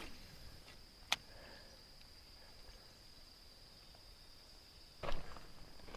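Steady high-pitched insect chorus, with a single sharp click about a second in and a brief louder scuffling noise near the end.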